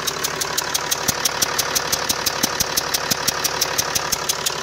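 Mercedes CDI diesel engine idling with a sharp, rapid, regular ticking, about eight ticks a second: injector blow-by, combustion gas escaping past a failed injector seal ring, the fault known as 'black death'.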